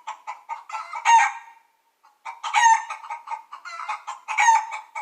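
A chicken clucking: a quick run of short clucks, about six a second, broken by three louder, drawn-out calls about one, two and a half and four and a half seconds in.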